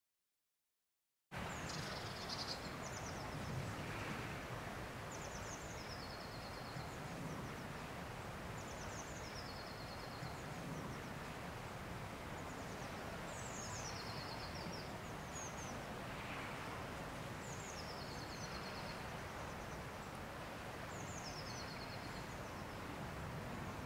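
A small songbird repeats a short, high, falling song phrase about every three to four seconds over a steady outdoor hiss. The sound cuts in suddenly about a second in, after a moment of silence.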